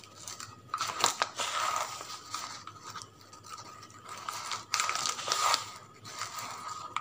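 Light scraping and a few sharp clicks of a spoon and container being handled while baking soda is scooped out.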